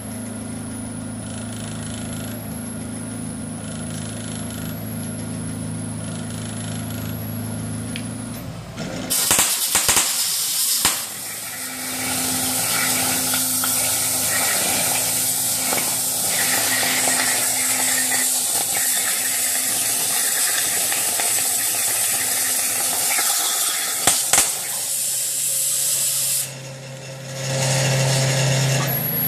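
CNC plasma torch cutting a steel flat bar. A low electrical hum at first; about nine seconds in, the cut starts with a loud steady hiss that has a few louder bursts and runs until a few seconds before the end. It then cuts off and the hum returns.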